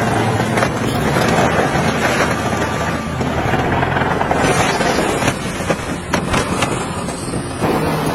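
Diesel engine of heavy earthmoving machinery running steadily under a loud rumbling clatter, with wind noise on the microphone.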